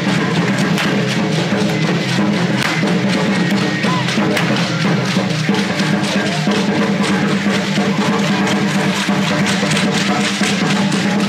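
Loud music with drums and sharp, clicking percussion, the kind that accompanies a street dance troupe.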